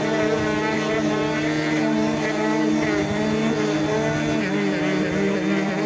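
DeWalt 5-inch random orbit sander with a 120-grit disc running steadily, its pad sanding the clear coat off an oak cabinet door; a constant motor hum with a slightly wavering whine above it.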